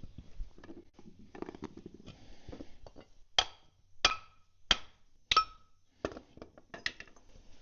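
Four hammer blows on steel, about two-thirds of a second apart, each ringing briefly, with softer knocks and clinks of metal parts before and after. The hammer is knocking a broken piece of spring off a Caterpillar D4D bulldozer's track recoil spring and tensioner assembly.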